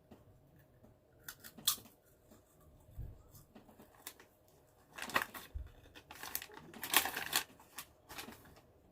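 Plastic snack bag crinkling and rustling in short, irregular bursts as it is handled, with a longer stretch of crinkling near the end.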